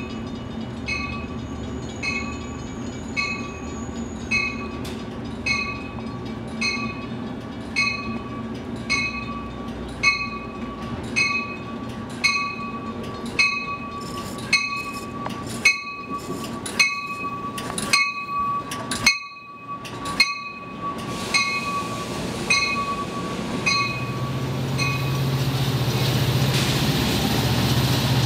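Railroad grade-crossing bell dinging about once a second, with a steady high tone alongside. Near the end the bell stops and an approaching train's rumble builds up, growing louder.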